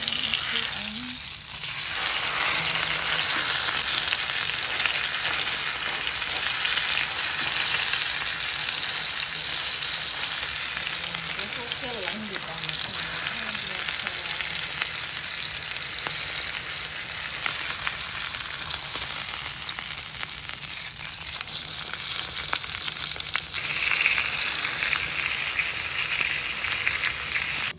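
Steak frying in butter in a stainless steel pan: a steady, dense sizzling hiss.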